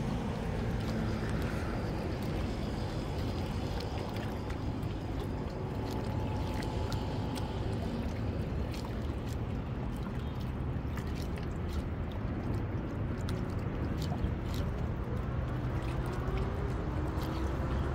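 Seawater washing and gurgling against shoreline rocks, a steady wash with a low hum underneath.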